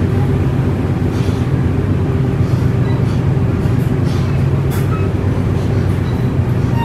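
Passenger train coach running through a rail tunnel, heard from inside the coach: a steady, loud low rumble of wheels on rails.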